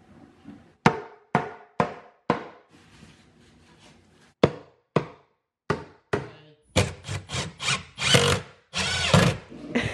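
Eight sharp, separate knocks on wood over the first six seconds. Then a cordless drill/driver driving screws into cabinet wood, first in quick short pulses and then in two longer runs near the end.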